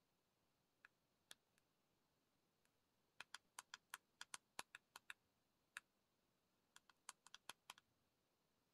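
Faint typing taps: a few scattered clicks, then a quick run of about a dozen starting about three seconds in, and another short cluster near the end.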